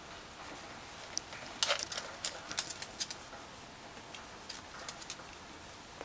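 Irregular scratchy clicks and rustles as a cat paws and claws at a wooden stick in its fleece bed. A quick cluster comes about one and a half to three seconds in, and a few more near five seconds.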